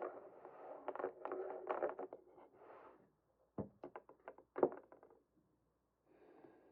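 Objects being handled: a few seconds of clattering and rustling, then a run of separate light knocks and taps, then a faint rustle near the end.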